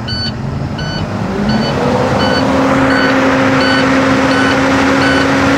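Box truck engine, heard from inside the cab, revving up about a second in and held at a raised speed to build air pressure in the empty brake system. Over it a warning beeps steadily about every 0.7 s, the low-air-pressure warning with the air at zero.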